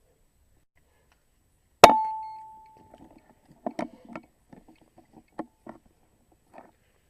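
A single air rifle shot, a sharp crack about two seconds in with a ringing tone that dies away over about a second. Then a scatter of light clicks and knocks.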